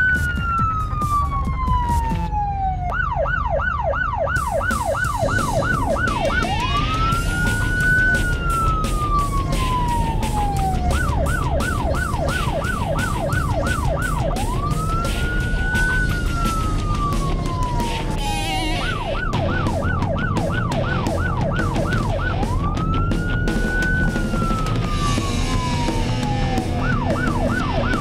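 Electronic emergency-vehicle siren cycling between a slow rising-and-falling wail and a rapid yelp, about five sweeps a second, over a steady low rumble. The pattern repeats about every eight seconds.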